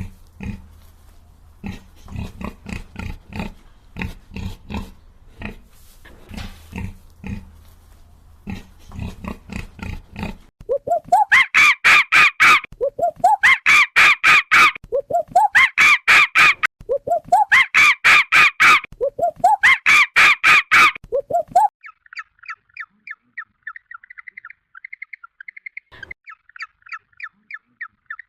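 A run of animal calls: about ten seconds of repeated low grunting like a pig's, then five loud calls that each rise steeply in pitch and hold high, then, from about twenty-two seconds in, fast high bird chirping.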